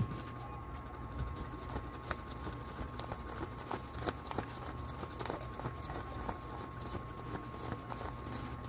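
Peso banknotes being counted by hand: soft paper rustles and small flicks as the bills are thumbed through one by one, over a faint steady hum.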